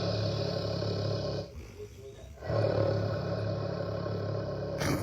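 Loud snoring: two long, steady low-pitched snores, one ending about one and a half seconds in and the next starting after a pause of about a second.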